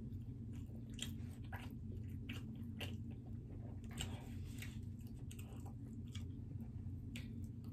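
A person chewing and biting pepperoni pizza, with scattered short, sharp mouth clicks over a steady low hum.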